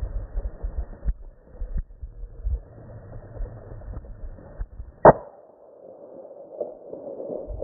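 A single .243 rifle shot, sharp and loud, about five seconds in, picked up by the rifle scope's own microphone. Before it come low handling rumbles and a couple of small knocks from the rifle being held on aim.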